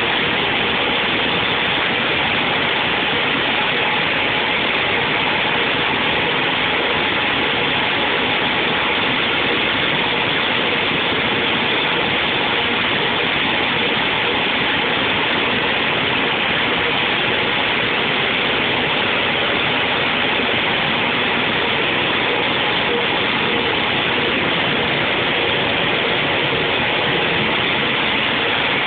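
A machine running steadily: a constant, loud rushing noise with a faint steady hum in it, unchanging throughout.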